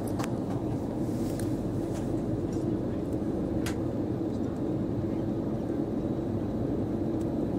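Steady cabin drone of an Airbus A320 airliner in flight, engine and airflow noise heard from inside the passenger cabin, with a couple of faint clicks.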